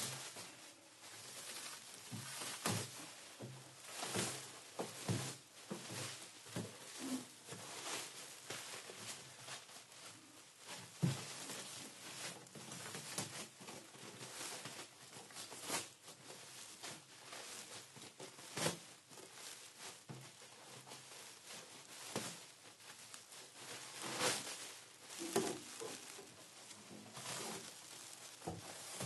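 Plastic sheeting crinkling and crackling irregularly as it is moved and handled, with a few louder crackles among softer rustling.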